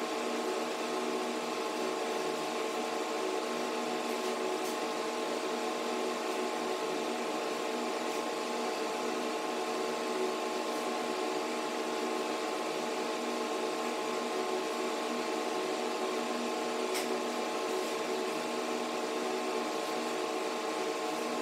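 Steady machine hum with several held tones over a soft hiss, unchanging throughout, with a couple of faint clicks.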